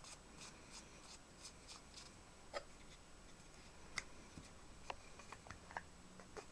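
Quiet handling noises: a quick run of light scraping strokes, then a few separate sharp small clicks, with no motor running.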